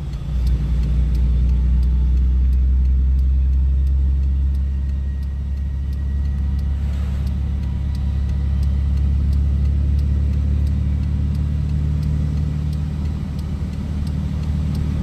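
Vehicle engine and road noise droning steadily inside the cab while driving down the road, swelling about half a second in and holding.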